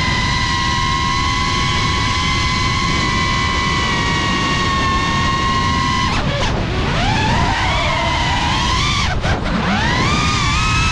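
Multirotor drone's electric motors and propellers whining at a steady pitch. About six seconds in the whine drops sharply and climbs back, wavering, then dips briefly again near nine seconds and rises: the throttle being cut and opened again as the drone dives and pulls out. A low rushing noise runs underneath.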